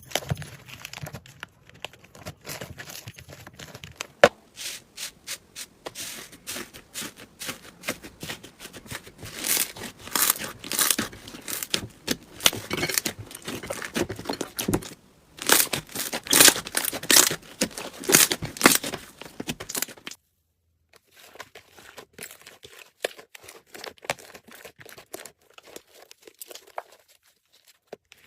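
Slime being squished and stretched by hand, giving dense wet crackling and popping that comes in louder bursts through the middle, breaks off briefly about two-thirds through, then goes on more quietly.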